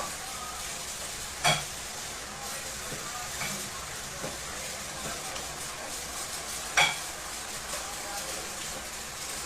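A steady hiss with two short, sharp clicks, the first about a second and a half in and the second about five seconds later.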